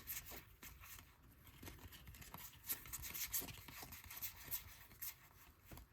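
Trading cards being handled and slid one off another while flipping through a pack: faint, scattered papery flicks and rubs.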